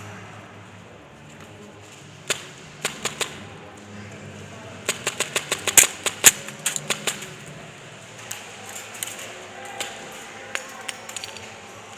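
Airsoft guns firing, sharp snapping shots: a single shot, a pair, then a quick volley of about a dozen shots a few per second, then scattered single shots. A steady low hum runs underneath.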